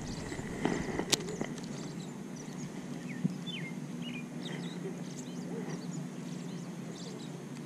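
Small birds chirping in short, quick calls over a steady low hum, with a sharp click about a second in.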